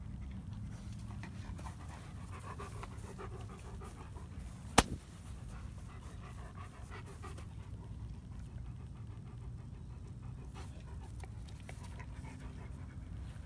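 Adult German Shepherd dogs panting close by. A single sharp click about five seconds in.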